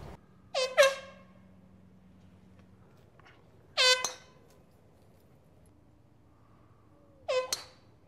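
Hand-held air horn blasted in short honks at golfers mid-swing: a quick double blast just under a second in, a single blast about four seconds in, and another double blast near the end. Each honk is loud and brief and slides up in pitch at its start.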